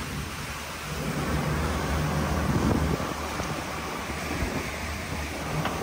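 Boat under way: a steady engine drone under wind buffeting the microphone and the rush of the wake.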